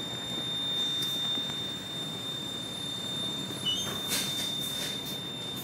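Ride noise inside a double-decker bus: steady low engine and road rumble, with a thin, steady high-pitched tone held throughout and a couple of faint ticks near the end.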